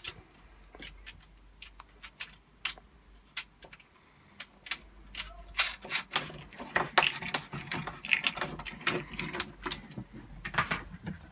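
Small metal nuts and bolts clinking and rattling as nuts are fitted by hand onto the bolts holding a droid's leg on, with sharp clicks and light knocks of parts being handled. The clicks are sparse at first and come thick and fast from about halfway in.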